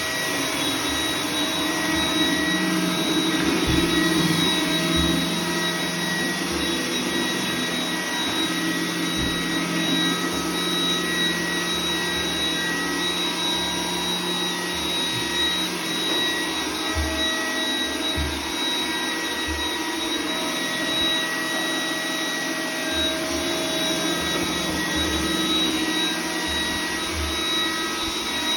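iRobot Roomba 980 robot vacuum running steadily, its motor noise carrying a thin high whine, with occasional dull low knocks.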